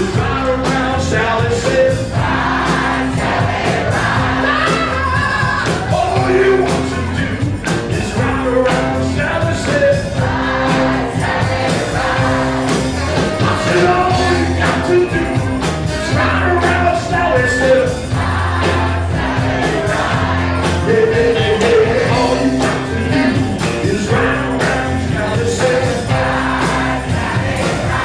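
Live soul band playing with singing: voices, several of them together, over a repeating bass line and a steady drum beat.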